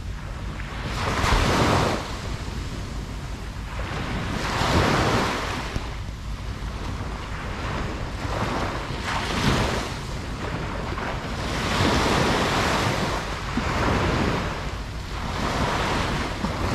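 Ocean surf washing onto a beach: a steady rush of breaking waves that swells about five times, every three to four seconds, over a constant low rumble.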